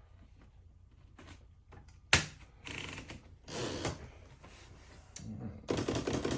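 Remington Quiet-Riter portable typewriter being worked: one sharp mechanical clack about two seconds in, then short stretches of rapid clicking and rattling from the carriage mechanism, the longest near the end.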